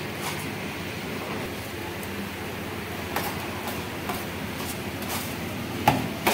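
A metal bench scraper knocking and scraping on a stainless-steel counter while shaved shawarma chicken is chopped, a few scattered taps with two louder knocks near the end, over a steady background hum.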